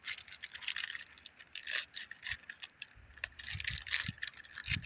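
A bullet-holed deck of playing cards being handled: papery rustling and crackling of the shredded cards with many small clicks, and low handling thumps near the end.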